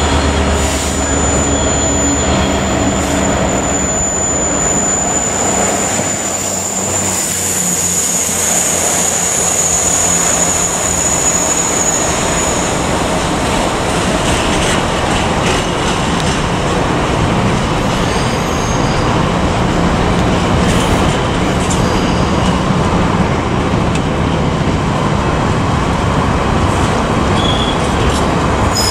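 Freightliner Class 66 diesel locomotive rumbling past, its engine fading within the first few seconds. A long train of loaded container flat wagons follows, rolling by with steady wheel-on-rail noise. A thin high squeal runs through roughly the first dozen seconds.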